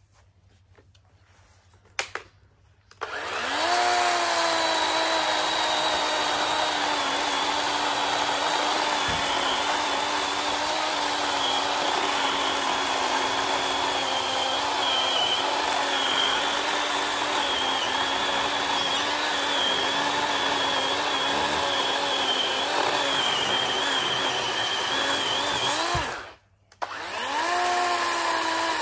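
A DeWalt DCM565 18V brushless cordless chainsaw cutting through a log. After a click about two seconds in, the motor spins up and runs at a steady speed, its pitch wavering slightly, for about 23 seconds. Near the end the trigger is released, the motor winds down, then it spins up and runs again.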